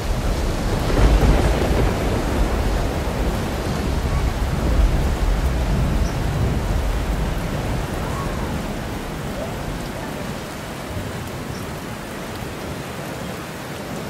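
Approaching thunderstorm: a steady rushing noise with low rumbling that swells about a second in and again near five seconds, then eases off after about eight seconds.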